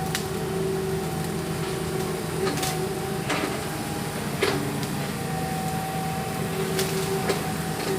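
Excavator's diesel engine running steadily with a constant droning tone, punctuated by a few short sharp knocks and clicks, the strongest about halfway through.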